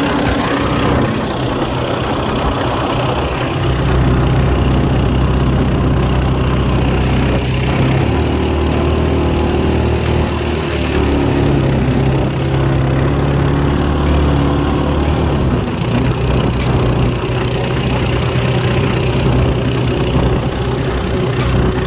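Harbor Freight Predator 224 single-cylinder engine on a longtail mud motor running steadily under way, its note stepping up and down several times as the throttle changes.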